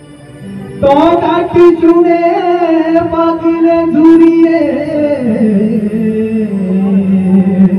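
Live band through a loud stage PA: a singer holds a long note, which slides down to a lower pitch about halfway through, over a steady keyboard drone. A few sharp drum hits come near the start and again about four seconds in.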